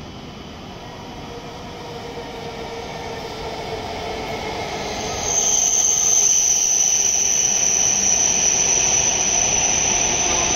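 A W7 series Shinkansen train pulls into the platform and slows toward a stop. Its running noise builds as it approaches, with a whine falling slightly in pitch. About halfway through, a loud, high, steady squeal sets in as the train brakes alongside the platform.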